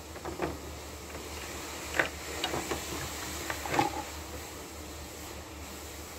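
Light clicks and knocks of hollow plastic doll parts being handled on a work table, about six in the first four seconds, the loudest about two seconds in and near four seconds, over a steady low background hum.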